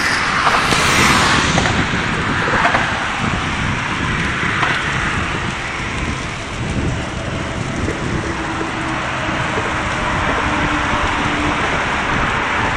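Wind rumbling on a phone microphone while cycling, mixed with the steady rush of motorway traffic passing alongside.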